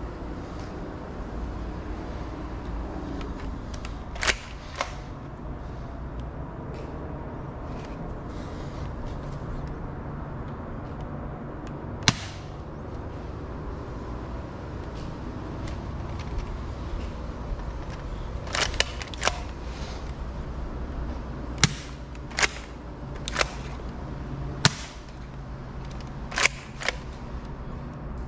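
Bug-A-Salt 3.0 salt gun firing: about a dozen sharp snaps at irregular intervals, coming more often in the second half, over a steady low background hum.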